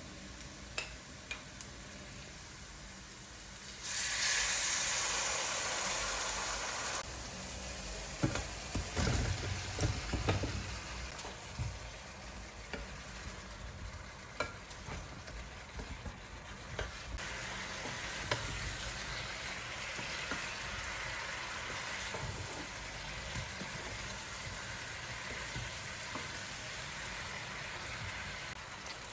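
Food sizzling in a hot pan and being stirred, with a utensil knocking against the pan. A louder hiss comes in about four seconds in and stops abruptly a few seconds later, followed by a run of knocks.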